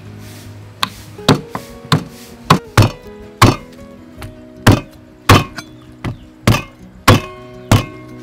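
Meat cleaver chopping a cow's leg, skin and bone, on a thick wooden chopping block: a dozen or so sharp chops, roughly two a second, over background music.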